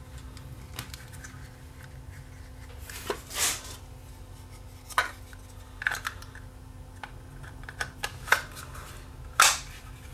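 Plastic case of a small power adapter being handled and pressed back together by hand: scattered clicks, taps and scrapes of plastic parts, with the sharpest snap near the end. A faint steady hum runs underneath.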